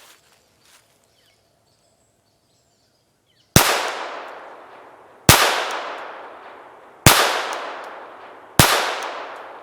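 Taurus TX22 .22 rimfire pistol fired in slow, aimed shots: four sharp shots about a second and a half to two seconds apart, starting about three and a half seconds in, each trailing off in a long echo.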